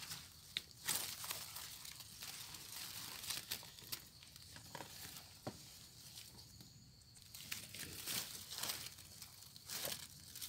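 Irregular rustling and crinkling of leaves and undergrowth being pushed aside and handled while picking mushrooms by hand, with a few light clicks and snaps.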